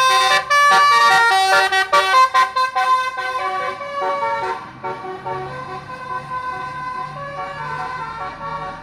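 Basuri "telolet" multi-tone air horn on a tour bus playing a quick melody of switching notes. It is loudest over the first three seconds, then goes on quieter with longer held notes as the bus passes.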